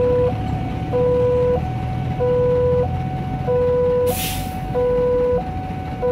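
Railway level-crossing alarm sounding from the crossing's loudspeaker, a warning that a train is approaching: an electronic two-tone signal alternating a low and a higher tone, each held about two-thirds of a second. A low rumble of waiting road traffic runs underneath, and a short hiss comes about four seconds in.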